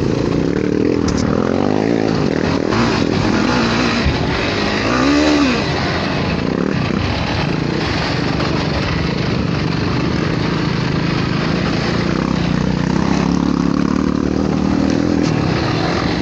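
Yamaha YFZ450 sport quad's single-cylinder four-stroke engine running under throttle, revving up and dropping back again and again, with the sharpest rise and fall about five seconds in. A steady rush of wind and riding noise lies under it.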